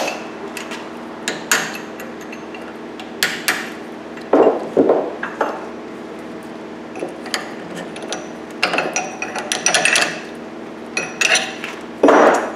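Hammer blows on a chisel against the old bearing race left on a 2010 Honda Accord front hub held in a steel vise: a few separate sharp strikes in the first few seconds, then clinks, clatter and scraping of metal tools and parts being handled.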